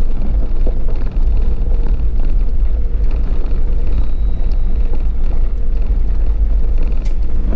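Vehicle driving along a rough back road: a steady, loud low rumble of engine and road noise.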